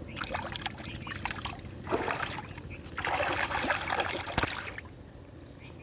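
Water splashing and sloshing in several bursts, the longest starting about three seconds in, with a sharp knock near its end.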